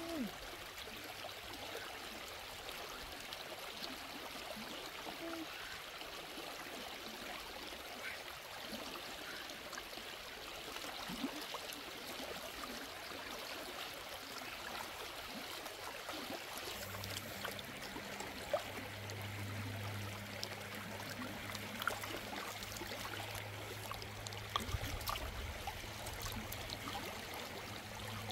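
Shallow river flowing steadily, with small splashes and sloshing as a cow tail is washed by hand in the water. A low steady hum joins about halfway.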